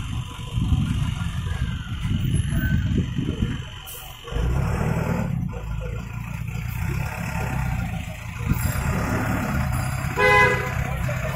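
A truck engine running steadily at idle close by, a low rumble. About ten seconds in, a vehicle horn gives one short toot.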